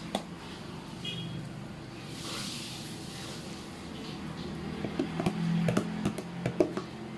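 A steady low hum with a soft hiss a couple of seconds in, then several sharp clicks and knocks near the end, as of dishes or utensils being handled in a kitchen.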